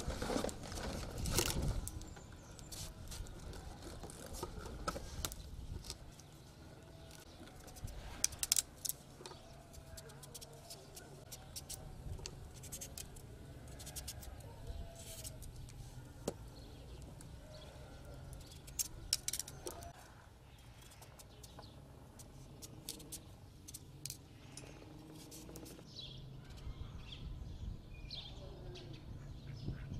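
A knife cutting and peeling pumpkin on a wooden cutting board gives occasional sharp knocks, loudest just at the start and about 8 and 19 seconds in. Birds chirp faintly in the background, a little more plainly near the end.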